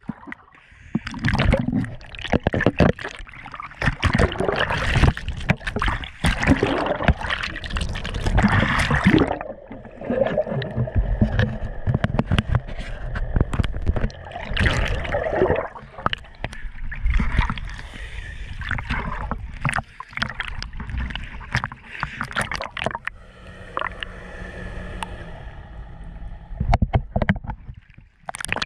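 Sea water splashing and sloshing around a handheld action camera at the surface, with muffled gurgling as it dips under and comes back up. A faint steady hum runs under the water noise in the second half.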